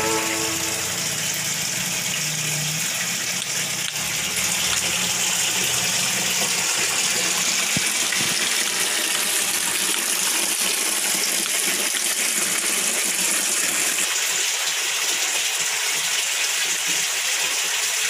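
Water gushing and splashing steadily from a DIY pond filter box made from an old refrigerator, churning through its filter tray and pouring out of three PVC outlet pipes into the pond below.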